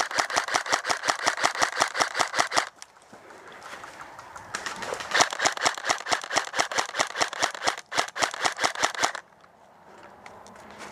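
Airsoft rifle firing on full auto: two long bursts of rapid, evenly spaced shots, the second starting about four and a half seconds in and stopping about two seconds before the end.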